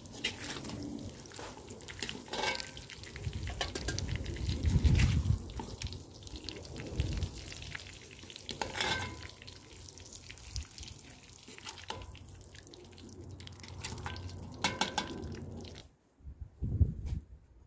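Pork pieces sizzling in hot fat in a metal cauldron over a wood fire, stirred with a metal ladle that clinks and scrapes against the pot, with a few louder low thumps. The sizzling stops abruptly near the end.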